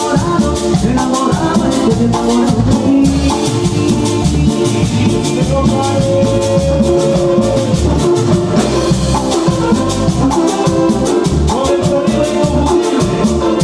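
Live Latin band playing: a metal güira scraped in a steady, quick rhythm over drums, bass and keyboard.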